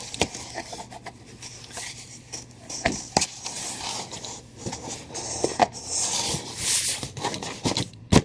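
A small cardboard box being folded and assembled by hand: scattered rubbing, scraping and light taps of cardboard, with a sharp snap near the end.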